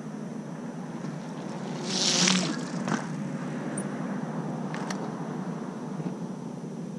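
Bicycle tyres riding through a shallow puddle: a short, loud splash about two seconds in, followed by a couple of light ticks.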